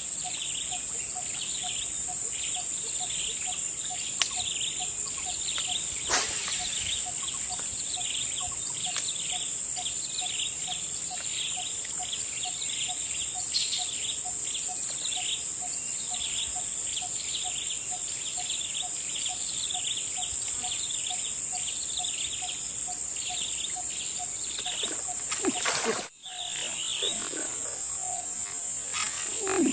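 Forest-edge chorus: a steady high insect drone, with many short bird or insect chirps and a faint pulsing call about twice a second. A few sharp clicks stand out, and the sound cuts out briefly near the end.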